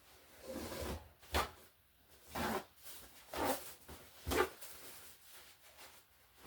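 Paper napkins being pulled out and handled: a handful of short rustles and knocks, about one a second.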